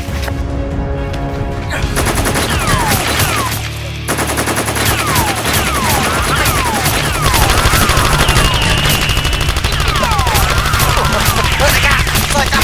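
Rapid machine-gun fire sound effects, dense from about two seconds in, with many whines falling in pitch, over background music.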